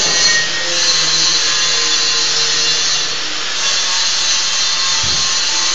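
Shielded metal arc (stick) welding arcs crackling in a steady, loud hiss. A brief low thump comes about five seconds in.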